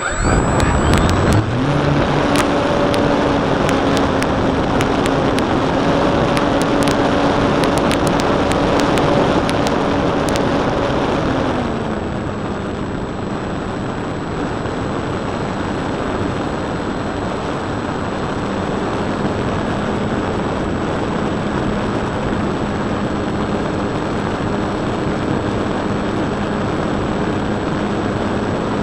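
Precision Aerobatics Extra 260 model plane's electric motor and propeller spooling up for takeoff, the drone rising in pitch over the first two seconds, then holding steady under loud rushing airflow. About 12 seconds in the throttle is eased back and the drone drops to a lower steady pitch; scattered sharp clicks come in the first ten seconds.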